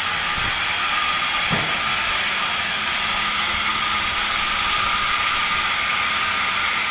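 Large sawmill band saw running on a teak log, a steady high hiss with a faint steady whine and a brief low thump about a second and a half in.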